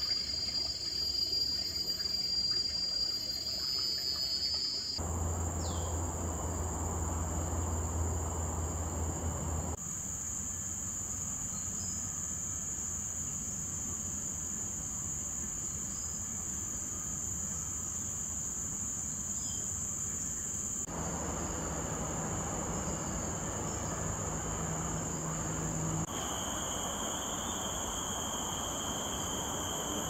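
Steady high-pitched drone of forest insects, joined by a second, slightly lower insect tone for the first few seconds. The lower background hiss shifts abruptly several times.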